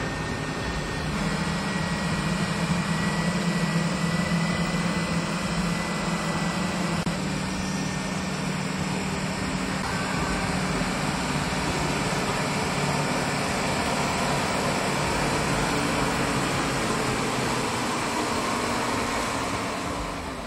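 Engine of a pickup truck fitted with an auxiliary-powered track unit, running steadily under load as it drives through shallow water and mud, over a constant rushing noise.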